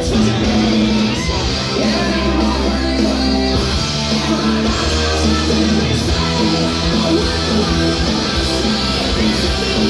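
Music: a song with electric-sounding guitar and a bass line, dense and steady in loudness throughout.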